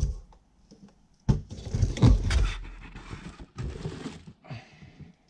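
Cardboard box and paper packaging being handled and emptied: uneven rustling and scraping, with a knock at the start.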